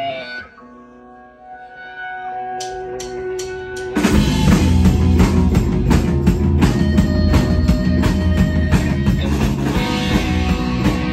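Live rock band with electric guitar, bass guitar and drum kit. Held guitar tones and a run of evenly spaced clicks lead in, then about four seconds in the whole band comes in loud with drums, bass and distorted guitar.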